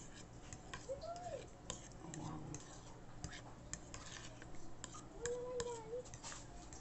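Metal spoon stirring a thick, creamy avocado mixture in a ceramic bowl, with light, irregular clicks and taps of the spoon against the bowl.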